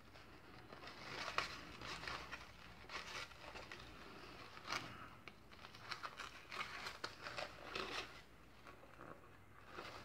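Ribbon and a small paper box being handled as the ribbon is pulled around the box and knotted: faint, irregular rustling and crinkling.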